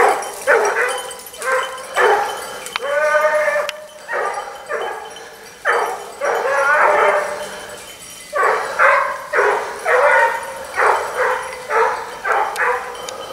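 A pack of Basset bleu de Gascogne hounds baying, giving tongue on a hare's scent: a run of drawn-out cries about one a second, several voices overlapping at times.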